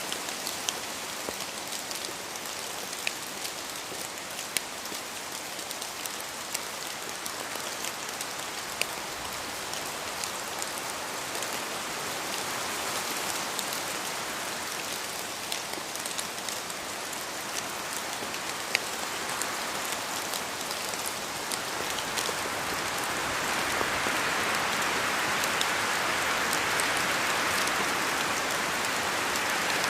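Steady rain falling in a forest, with scattered single drops ticking sharply above the hiss. It swells louder and fuller about two-thirds of the way through.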